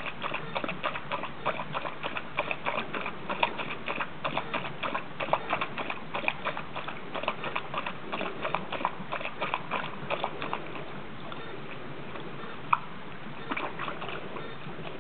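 Dog lapping water from a pond: a rhythmic, splashy clicking at about three to four laps a second. It stops about ten seconds in, and a few more laps follow near the end.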